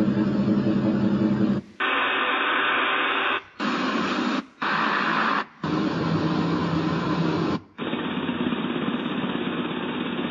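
A portable sound machine's speaker steps quickly through its preset sounds. It starts with a humming, pulsing machine drone, then plays a run of hiss-like noise tracks, some duller and some brighter. Each track stops with a short silence as the next one comes on, five switches in all.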